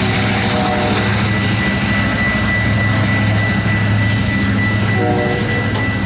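Metra diesel locomotive engine running with a loud, steady low hum and a thin steady high whine over it.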